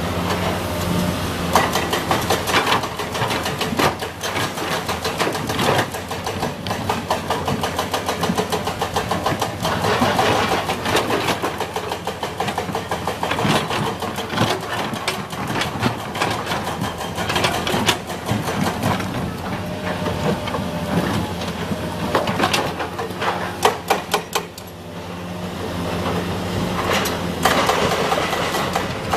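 Komatsu PC200 hydraulic excavator's diesel engine running steadily, with many short clanks and rattles over it throughout, and a brief drop in level about 24 seconds in before the engine builds up again.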